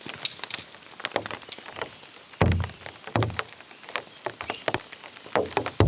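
Rain falling, with irregular heavy drops tapping onto nearby surfaces, and a few duller thuds about two and a half and three seconds in and again near the end.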